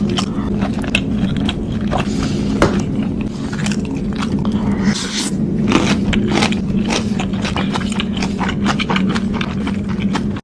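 Close-up eating sounds of Korean instant noodles: a rapid run of wet clicks and smacks from chewing, with a few longer slurps, over a steady low hum.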